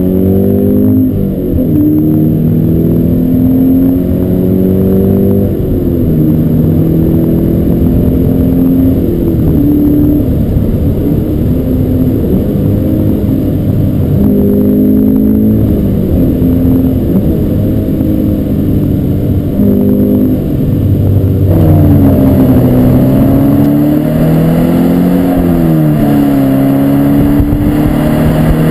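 Subaru BRZ's 2-litre flat-four boxer engine and exhaust under hard acceleration: the pitch climbs through each gear and drops sharply at each upshift, several times over.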